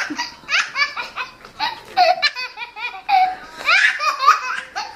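Baby laughing: a string of short, high-pitched bursts of laughter.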